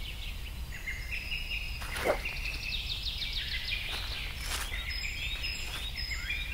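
Woodland ambience: birds chirping repeatedly in short rising calls, with a rapid trill in the middle, over a low steady rumble. A short sound falling in pitch about two seconds in is the loudest moment, and another brief one comes about four and a half seconds in.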